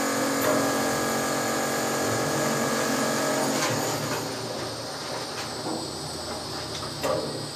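Potain MCT88 tower crane's electric drive motor whining steadily, fading out after about three and a half seconds to a lower hum, with a few faint knocks.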